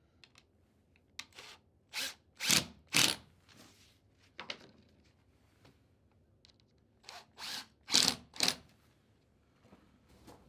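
Cordless drill run in short bursts of under half a second each: a quick series of about five, then a single one, then about four more.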